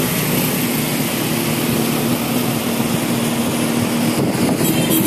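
Steady engine hum and road noise of a car driving, heard from inside the car, with a few faint clicks near the end.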